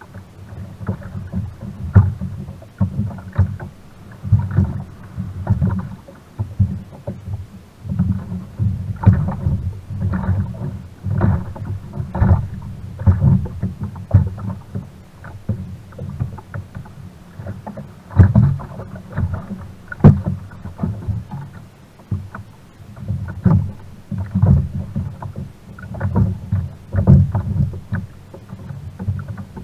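Small waves slapping and knocking against the hull of a sit-on-top kayak, an irregular run of low thuds and splashes.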